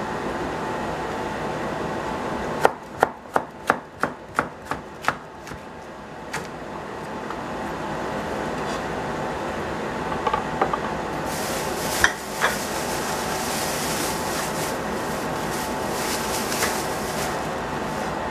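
Chef's knife slicing a bell pepper into strips on a plastic cutting board: about eight quick knife strokes, roughly three a second, for about three seconds. Later come a few lighter knocks and a rustle, over a steady background hum.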